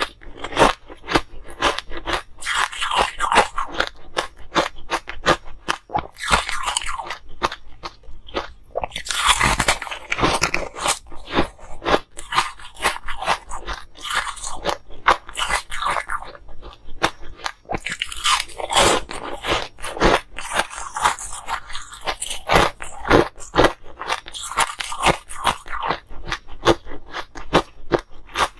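Ice being bitten and chewed, cracking between the teeth in a dense run of sharp crunches, with louder bursts of crunching every few seconds as fresh bites are taken.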